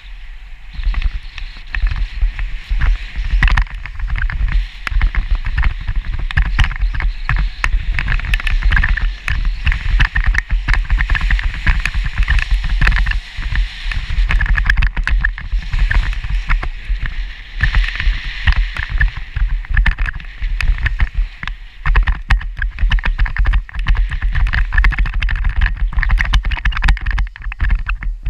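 Skis scraping and chattering over snow in a continuous irregular crackle, with wind rumbling on the microphone underneath.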